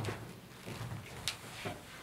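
Light footsteps and the knocks of a chair and desk as a man walks over and sits down, with a few short faint clicks.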